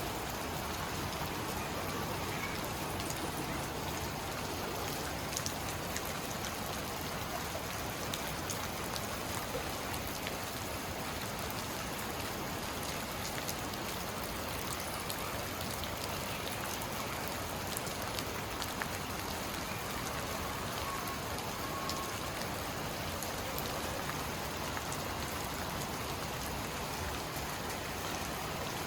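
Steady rain falling, with scattered individual drops ticking on surfaces.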